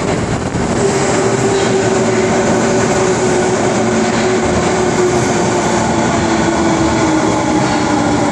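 Osaka Subway 22 series train pulling into an underground station platform and slowing: steady running noise of wheels on rail, with a tone that slides slowly lower as it comes in.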